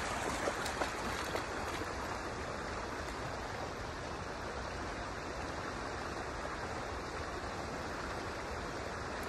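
Steady rushing of river water, with a few faint ticks in the first second or two.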